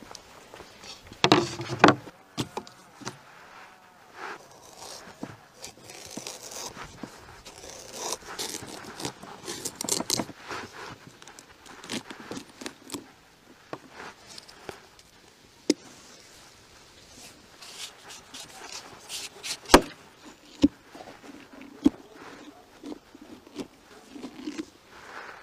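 Food-preparation handling sounds: a wooden cutting board clattering onto a table about a second in, then a knife scraping as it cuts around the top of a raw pumpkin, the lid pulled off, and a spoon scraping out the seeds and stringy pulp, with a sharp knock partway through.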